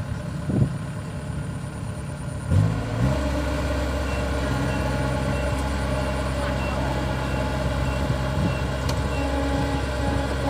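Kubota DC70 Plus combine harvester's diesel engine running; about two and a half seconds in it revs up with a quick rise in pitch, then holds a steady higher speed.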